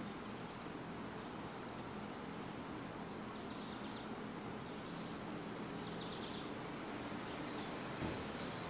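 Lakewood 20-inch box fan (Model 223) running steadily: an even rush of air over a low motor hum. From about three seconds in, faint short high chirps recur roughly once a second.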